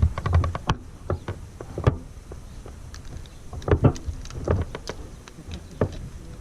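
Irregular clicks, knocks and scrapes close to the microphone, bunched near the start and again around four seconds in, over a low rumble.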